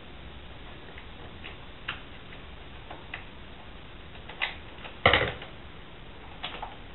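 Scattered soft clicks and ticks of adhesive vinyl film being handled and trimmed with scissors at a countertop edge, with one louder clack about five seconds in.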